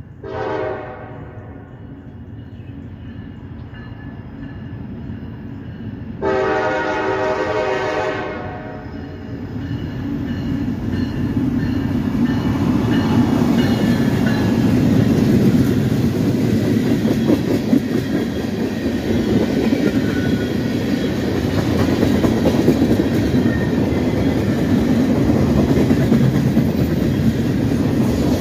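Locomotive air horn giving a short blast, then a longer blast about six seconds in. Then the train's rumble and wheel clatter on the rails grow louder and hold steady as it rolls past.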